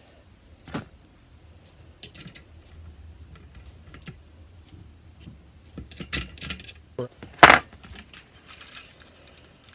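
Small steel air-rifle parts clinking and rattling as the trigger assembly and spring are slid out of a Remington Express spring-piston action. Scattered light metallic clicks, the loudest about seven and a half seconds in.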